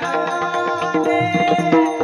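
Varkari kirtan music: steady held tones over a rhythm of pakhawaj drum strokes, between sung lines.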